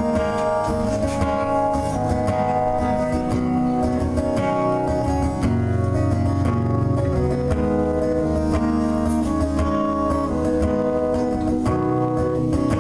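Live performance of a song's instrumental opening, led by acoustic guitar picking and strumming over a steady low end.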